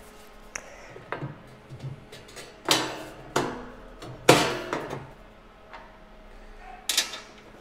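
Metal side panel of a slushie machine being fitted back over the condenser: a series of sharp knocks and rattles as it is pushed into place, the loudest about four seconds in, with one more knock near the end as the thumb screws are done up.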